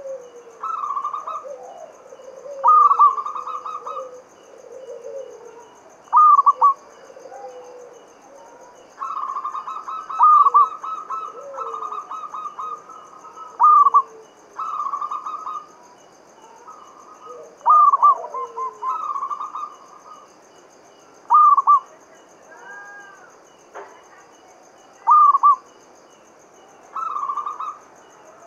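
Zebra dove (perkutut) cooing its staccato song: about ten short phrases of quick, rolling coos, with pauses between them. A faint steady high buzz runs underneath.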